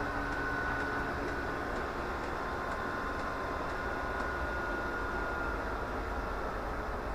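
A 2 kW Chinese diesel air heater's combustion blower fan running steadily with a faint high whine as the heater goes through its shutdown after running out of fuel.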